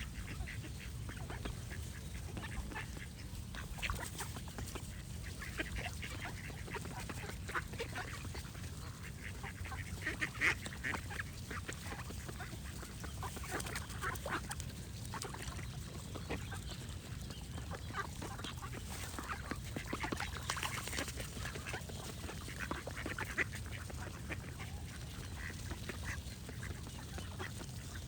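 Ducks quacking in scattered short calls throughout, one louder quack about ten seconds in, with birds singing and a steady low rumble underneath.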